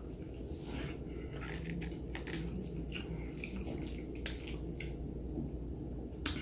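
Eating crispy fried chicken close to the microphone: irregular crunching, wet mouth sounds and crackling as the crust is chewed and a piece is pulled apart by hand, with a sharper crack near the end.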